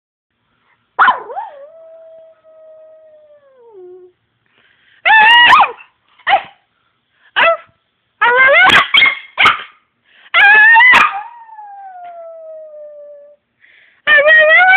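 A dog howling: a run of about seven loud yelping calls, several of them trailing off into long howls that slowly fall in pitch.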